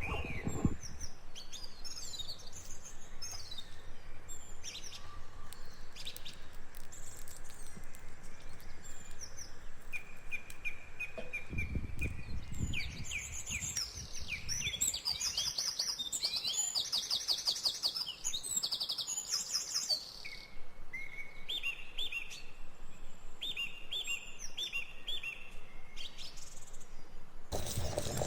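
Several songbirds singing in a forest: fast trills, repeated two-note calls and scattered chirps overlapping. A brief low rumble comes about twelve seconds in.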